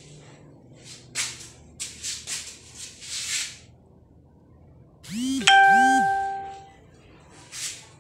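A bright electronic chime rings once, a ding that fades out over about a second and a half. Before it come several short bursts of hiss, and one more comes near the end.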